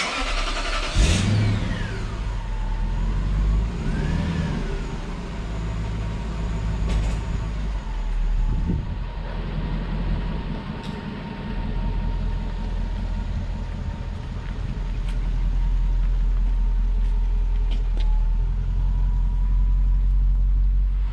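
Lexus GS400's 1UZ-FE V8 engine running, its pitch rising and falling a couple of times in the first few seconds, then steady with a constant whine. The car now runs on its freshly replaced starter.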